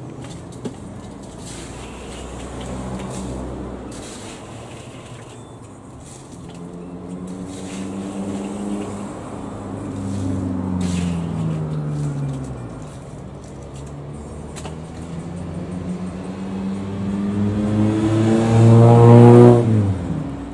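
Road traffic going by: one vehicle's engine falls in pitch as it passes about ten seconds in, and another grows louder and passes close near the end, its pitch dropping sharply as it goes by.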